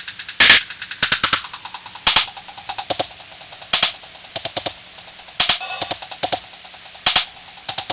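Instrumental drum-machine beat: fast ticking hi-hat-like clicks with a louder snare-like hit about every second and a half, over a faint steady keyboard tone.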